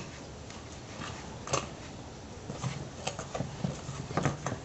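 Cookie dough of flour and egg being stirred in a glass mixing bowl: a couple of sharp clicks, then a run of soft knocks and scrapes in the second half.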